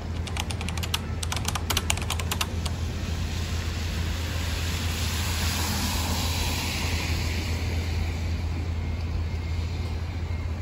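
City street ambience: the steady noise and low rumble of road traffic. In the first two or three seconds, a quick irregular run of sharp clicks sits over it.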